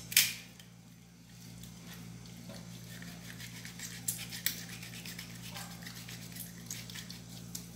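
Kitchen knife cutting through a raw chicken on a wooden cutting board: a sharp knock just after the start, then scattered small clicks and scrapes of the blade through skin and joints, over a steady low hum.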